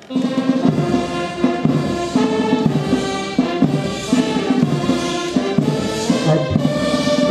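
Military brass band playing, striking up abruptly.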